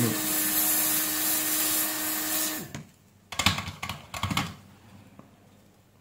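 Hot air rework station blowing a steady hiss with a faint hum while solder paste is reflowed under a micro-USB port; it cuts off suddenly a little under three seconds in. A short run of clicks and knocks follows as tools are handled and set down.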